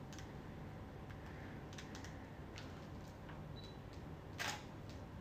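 A few faint clicks over quiet room tone, with one louder camera shutter click about four and a half seconds in.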